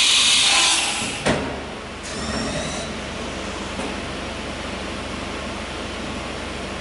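1997 Mikron-Haas VCE500 CNC machining centre running: a loud hiss that fades out about a second in, a single sharp knock, then a steady mechanical hum.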